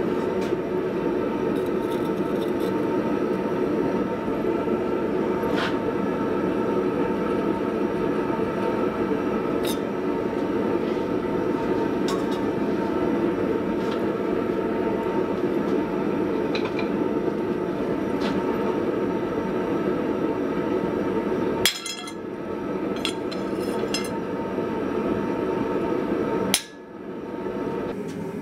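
Forge running with a steady, low rushing noise while the steel heats, with a few faint metallic clinks. Two sharp knocks come near the end, each followed by a brief dip in the noise.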